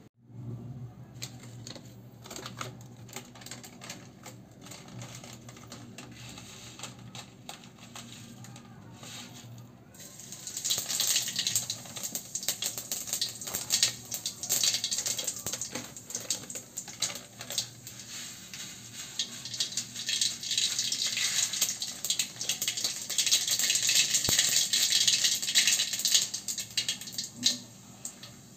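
Hot oil sizzling and crackling in a metal kadai on a gas stove as something fries in it. Faint clicks come first, then from about ten seconds in the sizzle starts dense and high and grows louder, dying down just before the end.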